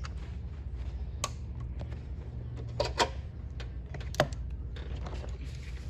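A few sharp clicks and knocks of tools and parts being handled during work on an engine, over a steady low hum.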